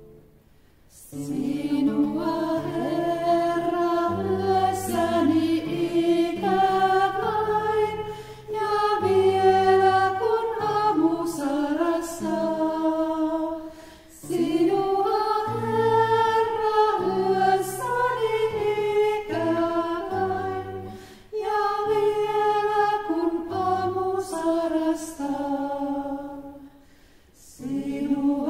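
A small group of women's voices singing a sacred song in harmony, with an acoustic guitar playing under them. The song goes in phrases broken by short pauses.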